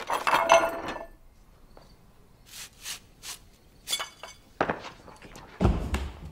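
Light clinks and knocks of small hard objects, busiest in the first second, then a dull thump about five and a half seconds in.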